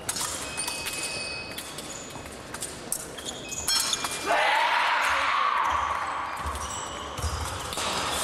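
An épée bout with light metallic blade clicks, then about four seconds in a loud, drawn-out cry as a touch lands; it fades over the next few seconds.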